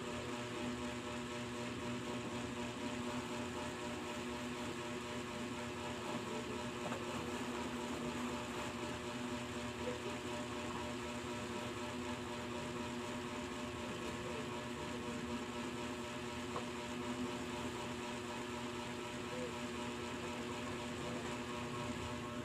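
Steady mechanical hum of a running motor, with several steady tones held throughout.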